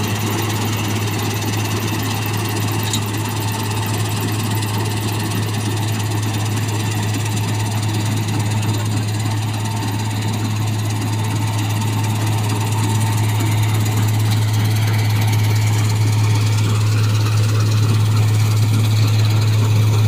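New Holland 3790 combine harvester running as it cuts wheat: a steady low hum with machinery noise, growing slowly louder as the machine comes closer.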